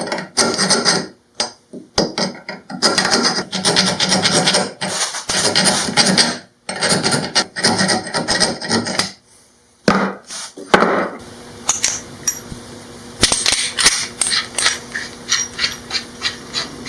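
Steel file rasping on a metal door-lock plate in repeated long strokes, filing out notches. Then short metal clicks and taps.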